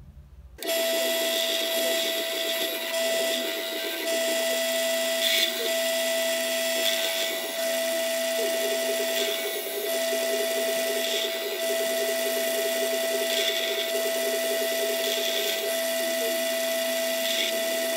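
Bench drill press spinning a sanding drum, running with a steady whine while a wooden knife-handle scale is ground against it for rough shaping. The grinding of the wood comes and goes as the piece is pressed on and eased off. The sound starts abruptly about half a second in.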